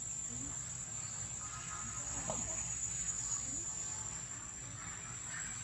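Steady high-pitched insect drone over a low rumble, with a few faint short animal calls, the clearest a quick falling call about two seconds in.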